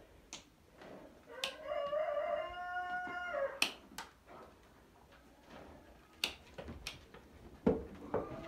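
A rooster crowing once, a single drawn-out call of about two seconds that rises and then holds. A few sharp clicks follow.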